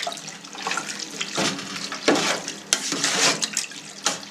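Freshly salted cheese curds being stirred with a spatula in a stainless steel tray with a little whey: wet sloshing strokes, roughly one a second, as the curd begins to stick together.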